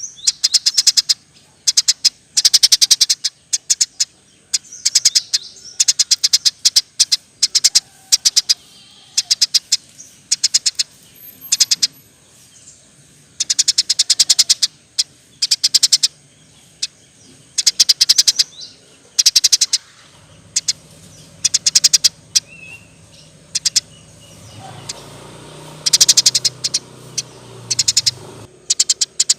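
Eurasian tree sparrow chirping hard in rapid chattering bursts, each under a second long, repeated every second or two. In the last third a faint low hum runs underneath.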